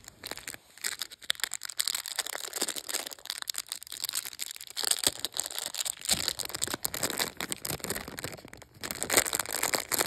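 Paper towel wrapping rustling and crinkling as it is unwrapped by hand, a dense run of crackles that pauses briefly near the end, followed by a clear plastic bag crinkling.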